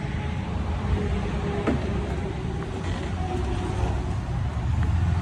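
Diesel semi truck's engine idling, a steady low hum that gets a little louder near the end.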